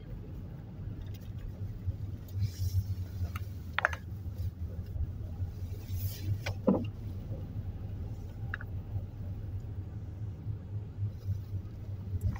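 Car driving along a city street, heard from inside the cabin: a steady low rumble of engine and road noise, with a few brief squeaks.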